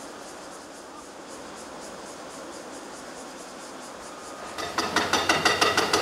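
Faint steady outdoor background, then, about four and a half seconds in, a loud rhythmic mechanical clatter of about five knocks a second starts up from working excavators.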